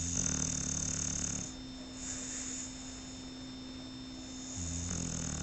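Shar Pei dog snoring: two low snores, each about a second and a half long and about four seconds apart, with a softer breath between them.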